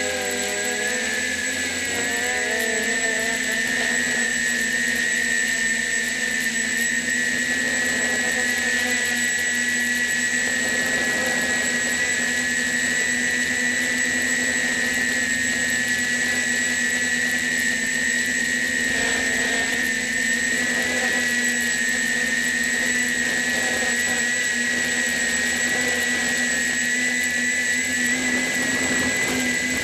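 MX400 quadcopter's electric motors and propellers running in flight, a steady high-pitched whine heard from the drone's own onboard camera. The pitch wavers slightly in the first few seconds, then holds steady.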